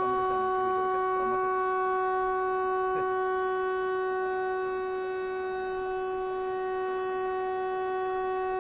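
Train horn sounding one long, steady blast, a chord of several held notes, given as the train is about to pull out of the station.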